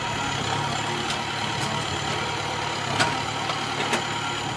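An engine running steadily at idle, with a few short clicks or knocks over it.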